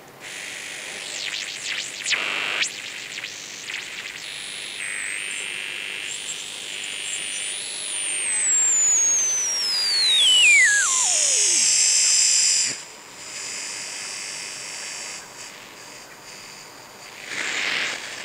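Shortwave regenerative receiver with a Twinplex type 19 tube detector giving out hiss and static, with a whistle that sweeps from very high down to low pitch about eight to twelve seconds in as a front-panel knob is turned. The whistle is the heterodyne of the oscillating detector beating against a station's carrier while it is tuned across it.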